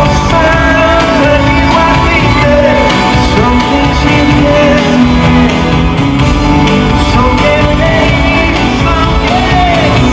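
Live rock music with a singer, played loud and without a break through a concert sound system in a large hall.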